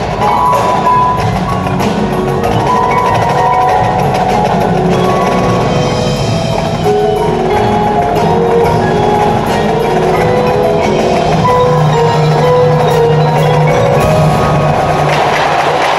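An indoor percussion ensemble playing. Marimbas and other mallet keyboards carry a melody of ringing notes over low held bass notes, with drum strokes throughout.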